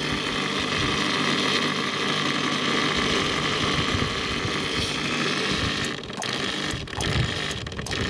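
Dishwasher motor running with a steady whirring hum, with a few brief dips near the end.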